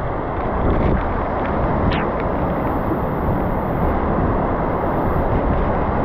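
Waterfall: falling water making a loud, steady rushing noise.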